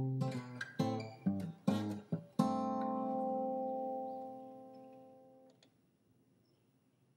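Acoustic guitar background music: strummed chords, then a final chord struck about two and a half seconds in that rings on and fades out about three seconds later.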